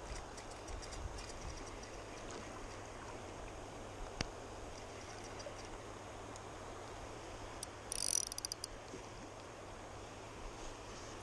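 Steady rush of river water with light ticking from a KastKing Zephyr 1000 spinning reel being cranked. A single sharp click comes about four seconds in, and a quick run of sharp clicks about eight seconds in.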